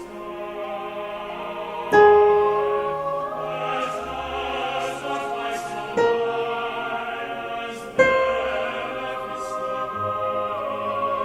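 Choir singing a slow piece, with a piano picking out one vocal line (the second sopranos) over it: single piano notes struck about 2, 6 and 8 seconds in, each ringing and fading under the held voices.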